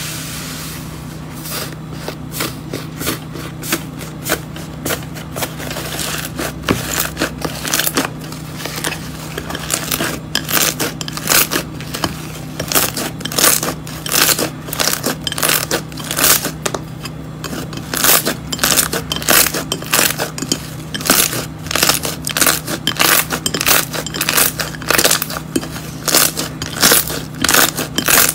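Pink iceberg slime pressed and kneaded by hand: its dried crust crackles and crunches in a run of sharp snaps. The snaps come faster and louder from about ten seconds in as the slime is squeezed.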